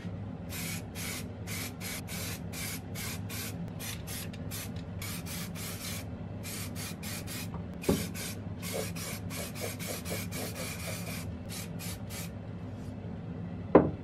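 Aerosol spray can of primer hissing in many short bursts, with a few longer sprays, as coats of primer go onto the metal parts. A steady low hum runs underneath, and there are two knocks, the louder one near the end.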